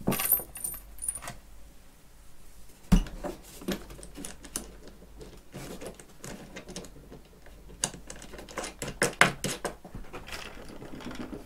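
Irregular small clicks and knocks of a nut being fitted onto a bolt that holds a tube to the side of a polystyrene ice-fishing box, as hands handle the parts. There is a sharper knock about three seconds in and a quick run of clicks near the end.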